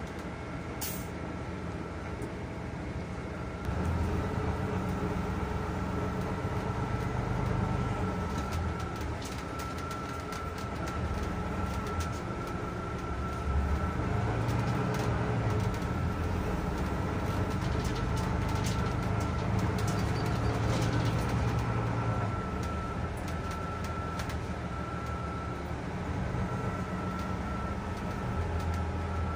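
Interior sound of a Solaris Urbino 12 IV city bus: the engine rumbles at a standstill, then grows louder as the bus moves off about four seconds in and drives on. A steady high whine runs under the engine, with a brief sharp hiss about a second in.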